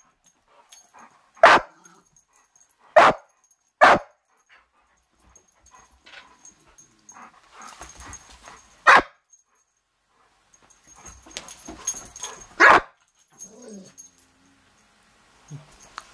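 Dogs playing: five short, sharp barks a few seconds apart, with scuffling between them and a brief whine near the end.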